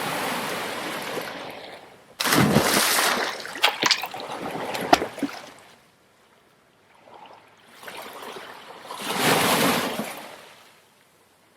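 Sea water washing and splashing in three swells of noise, with a few sharp clicks in the middle one.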